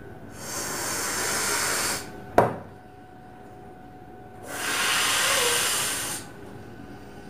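Rubber balloon being blown up by mouth: two long breathy blows of air into it, each a little under two seconds, with a short sharp thump between them.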